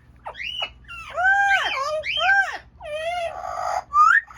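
Amazon parrot giving a run of about six wailing, voice-like calls. Most rise and then fall in pitch, one wavers, and a short rising call comes near the end.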